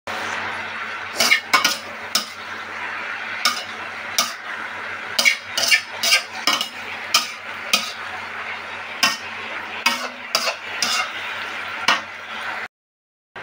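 Shredded cabbage sizzling as it stir-fries in a stainless steel wok, with a metal spatula scraping and clanking against the pan in quick, irregular strokes.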